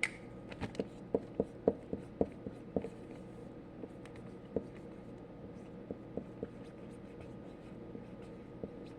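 Pen or marker writing a label, a string of light taps and scratches, quick and frequent in the first three seconds and sparser after.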